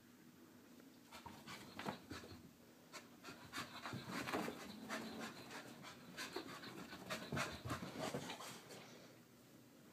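Soft-coated wheaten terrier panting in quick, uneven breaths. It starts about a second in and dies away near the end.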